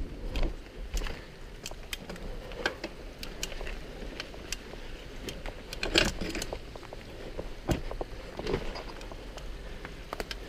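Mountain bike rattling over a rough, rocky dirt trail: irregular clicks and knocks from the bike and its camera mount over a steady rush of tyre and wind noise, with the sharpest jolt about six seconds in.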